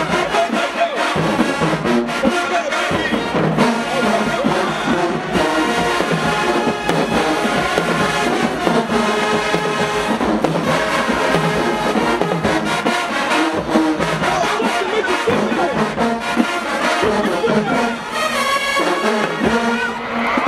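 HBCU show-style marching band playing, its brass section carrying the music.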